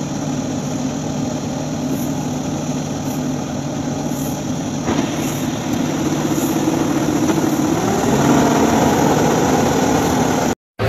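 Combine harvester's diesel engine running steadily, with the unloading auger working. The engine note shifts about five seconds in and rises near eight seconds as the auger starts pouring grain, then the sound cuts off abruptly just before the end.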